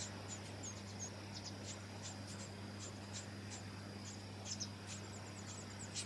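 Brown-headed honeyeater nestlings begging at the nest: short, high, thin calls, about three a second, coming faster in a quick run near the end, over a faint steady high whine.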